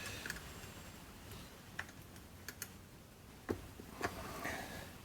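Faint, scattered light clicks and taps of metal parts being handled as the bench grinder's housing halves are fitted together, about half a dozen irregular clicks with a brief rustle near the end.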